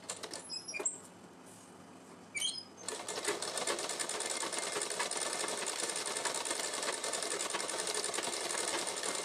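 Sewing machine stitching, starting about three seconds in and then running steadily with a fast, even needle rattle. A few light clicks come before it starts.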